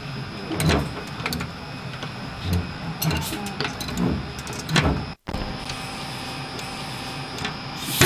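Metal clunks and knocks from the handle of valve VH-14's remote actuator being worked by hand, about half a dozen in the first five seconds, over the steady machinery hum of a submarine compartment. The sound cuts out for an instant just past five seconds, and then only the hum continues.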